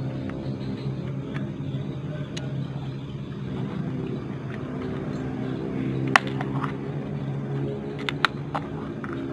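A steady low motor hum, with a few sharp plastic clicks about six seconds in and again near the end as a small plastic box is handled and opened.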